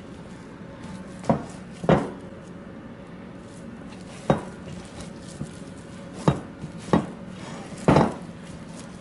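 Hands kneading a sticky cheese-and-egg gnocchi dough in a bowl, with about six sharp knocks at irregular intervals as the dough and bowl are worked.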